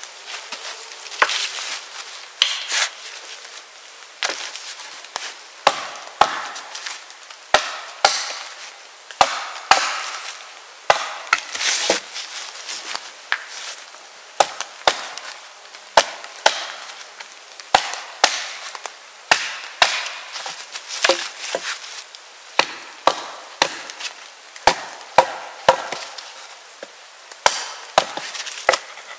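Axe striking wood again and again, short sharp knocks at an uneven pace of about one to two a second: precise chopping and splitting of firewood.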